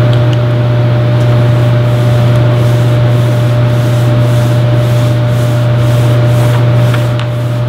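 Rhythmic rubbing strokes, about two a second, over a loud steady low machine hum.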